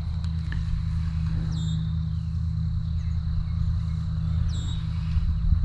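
A steady low hum, like a distant engine, with two short high bird calls, each sliding down in pitch, about one and a half and four and a half seconds in.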